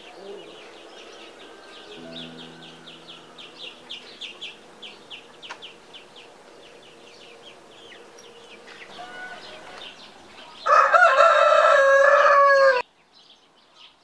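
A rooster crows once, loud and about two seconds long, near the end, its call dropping in pitch as it closes. Before it, a bird chirps in a fast, steady series of short high notes.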